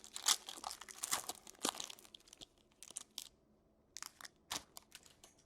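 Wrapper of a trading card pack crinkling and tearing as the pack is opened: a dense run of crackles for about three seconds, then a few separate crinkles near the end.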